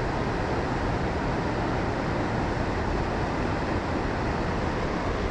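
Steady rush of flowing river water, a dense even noise with a low rumble.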